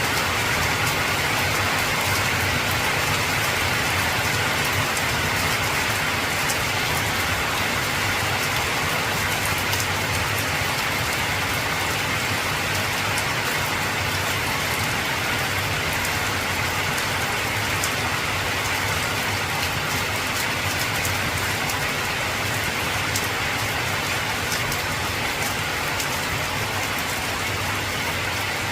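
Heavy rain falling steadily on an old tin roof: a dense, even patter with scattered sharp drop ticks.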